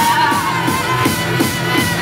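Amplified live club music with a steady electronic beat; a long held note fades out about halfway through.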